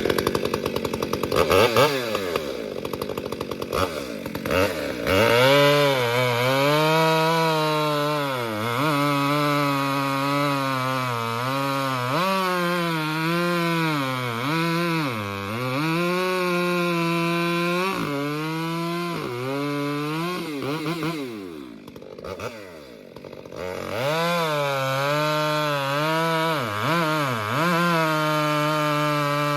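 Gas chainsaw running at high revs while bucking logs into rounds, its pitch sagging each time the chain bites into the wood and climbing back between cuts. The saw briefly drops off near the last quarter, then revs up and cuts again.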